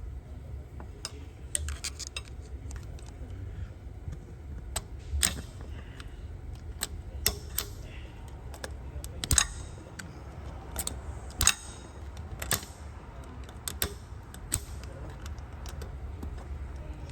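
Irregular metallic clicks and clinks of transmission parts being worked by hand as a clutch drum is taken apart to get its piston out, with a few sharper knocks about halfway through, over a low steady hum.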